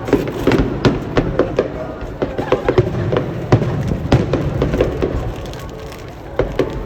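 Aerial fireworks bursting in quick succession, with a dense run of sharp bangs and crackles that thins out near the end.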